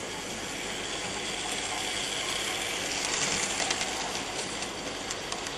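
Model diesel locomotive and its wagons running along a model railway track: a steady motor-and-wheel whir that grows louder about three seconds in as the train passes close, with a scatter of sharp clicks.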